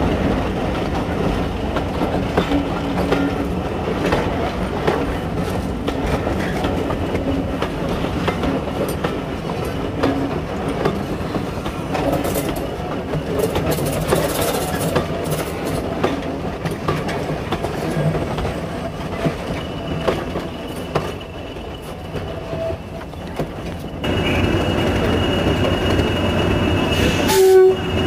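Passenger coaches rolling past, their wheels clicking over the rail joints with a steady rumble that eases as the last coach goes by. About four seconds before the end the sound changes to standing diesel locomotives running with a steady high whine, and there is a short loud blast near the end.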